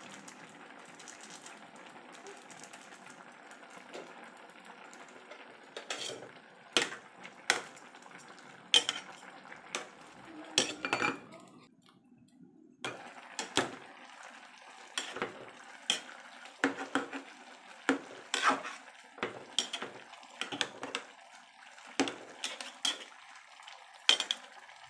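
For about six seconds there is only a faint steady hiss of the gas burner and the simmering pot. Then come irregular sharp clinks and scrapes of a metal ladle and a glass pot lid against a nonstick cooking pot as the sayote and potatoes are covered and stirred.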